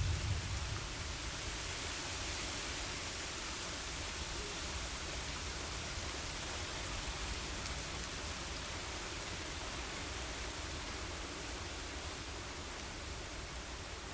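Steady rain with wind, an even hiss; the low rumble of a thunderclap dies away in about the first second.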